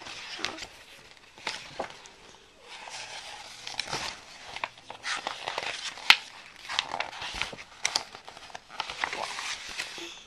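Paper pages of a picture book rustling and crinkling as they are handled and turned, with scattered sharp clicks, the loudest about six seconds in.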